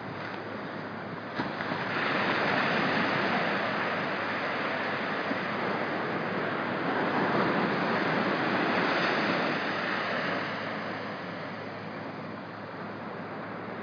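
Small surf breaking and washing up the beach: the rush swells about a second and a half in, holds for several seconds, then eases off near the end.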